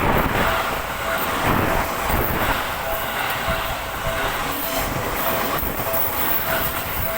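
Seibu Ikebukuro Line electric commuter train passing at speed, its wheels rumbling and clattering on the rails. A level-crossing bell rings over it with a short tone repeated at an even pace.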